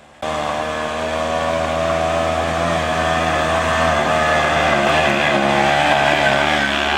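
A small engine running steadily, its pitch wavering slightly; it cuts in abruptly a fraction of a second in.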